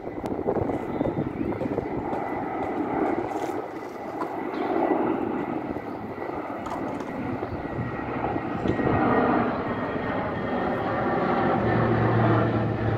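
Engines of a low-flying high-wing transport plane droning steadily as it approaches overhead, growing louder toward the end, with a low hum coming in during the second half.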